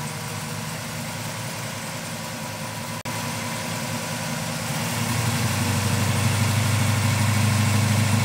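1969 Dodge Charger R/T's 440 big-block V8 idling steadily, growing louder about five seconds in.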